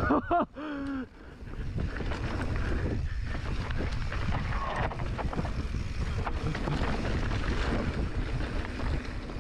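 Steady, rough rumble of wind on the microphone while riding an enduro motorcycle off-road, after a short vocal cry in the first second.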